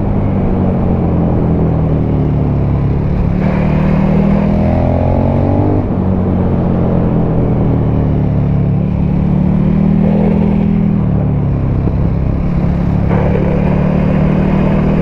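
KTM 1290 Super Duke R's V-twin engine through an Akrapovic titanium slip-on exhaust, running under way as the bike is ridden; the engine note climbs with acceleration about four seconds in, then eases off and settles.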